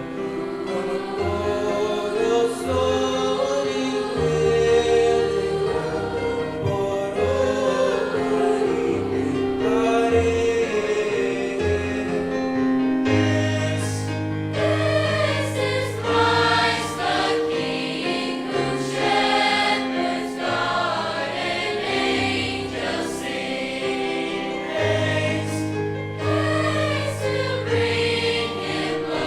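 High school choir singing a Christmas song in parts, over held low accompaniment notes.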